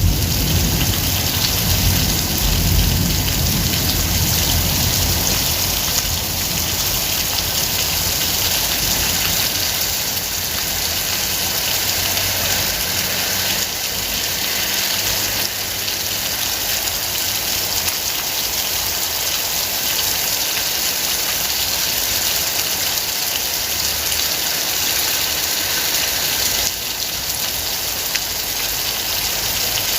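Steady heavy rain falling, a dense even hiss. A low rumble in the first few seconds fades away.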